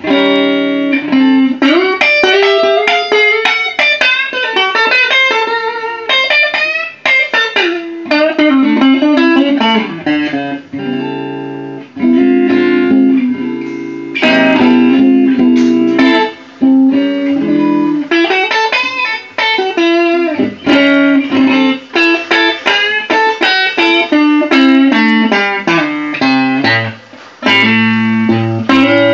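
Burn Marquee Club electric guitar played through an amplifier: quick single-note melodic runs mixed with chords and held notes, with a few short breaks between phrases.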